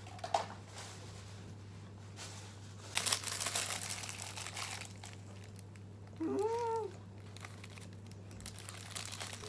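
Plastic food wrapper crinkling as it is handled, loudest for a couple of seconds near the middle. It is followed by a short hum that rises and falls.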